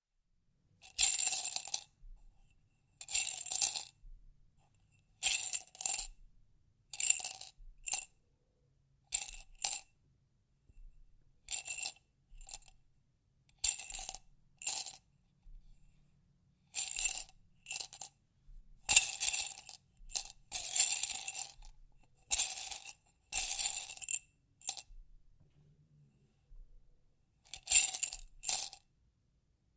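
A small hard object rattling and clinking around inside a glass jar as the jar is shaken, in repeated short bursts with brief pauses between them.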